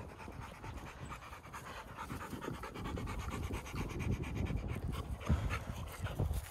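A Rottweiler panting hard close to the microphone in a quick, steady rhythm of breaths, with wind rumbling on the microphone.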